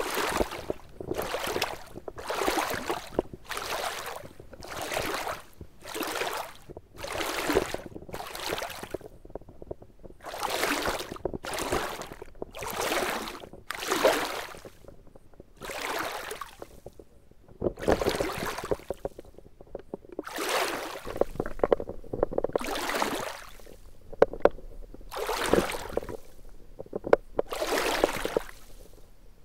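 Water sloshing over an action camera held just under the surface, in rhythmic rushes about once a second that spread out to every second or two later on.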